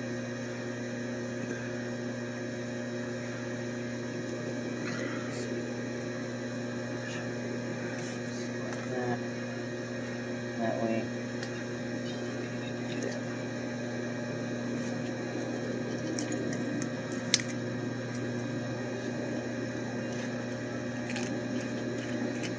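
Steady electrical machinery hum, with light clicks and taps as filter-drier cores and metal parts are handled and set in place. One sharp click comes about seventeen seconds in.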